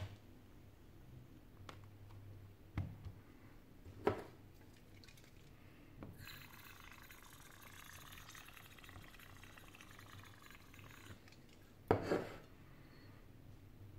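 Aerosol cleaning spray hissing steadily for about five seconds onto a phone's glass back panel. A few light knocks come before it, as the phone is handled on a rubber mat, and another comes about a second after the spray stops.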